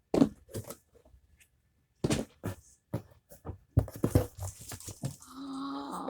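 Irregular sharp pops and clicks from a silicone pop-it fidget toy being pressed and handled along with its plastic packaging, then a short pitched, steady sound near the end.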